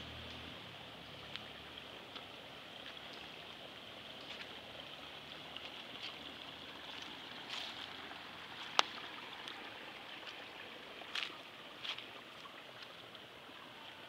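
Steady outdoor background hiss with scattered soft clicks and one sharp click about nine seconds in.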